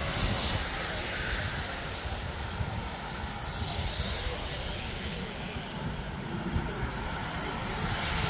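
Road bicycles riding past one after another, their tyres hissing on the tarmac, with louder passes about three seconds in and near the end.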